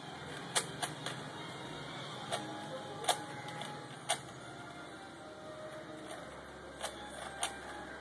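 Plastic Rubik's cube being twisted by hand: scattered sharp clicks and clacks as its layers are turned, about eight at irregular intervals.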